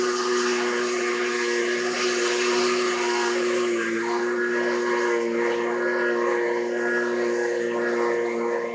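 Countertop blender motor running steadily, puréeing roasted butternut squash. Its hum dips slightly in pitch about four seconds in.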